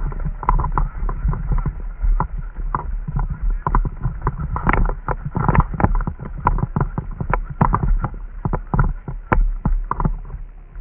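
Irregular sharp clicks and knocks, several a second, over a steady low rumble.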